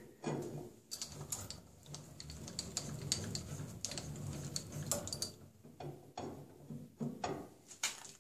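Controls of a Holzmann benchtop metal lathe being worked by hand: the carriage handwheel is cranked and the tool post shifted. This gives a run of gear-like ratcheting clicks and sharp metal knocks over a low mechanical rumble.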